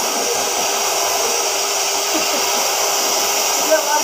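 CNC cutting torch hissing steadily as it cuts through a thick steel plate flange.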